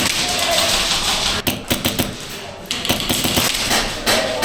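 Airsoft gunfire: quick runs of sharp clicking shots, thickest about a second and a half in, over a noisy background.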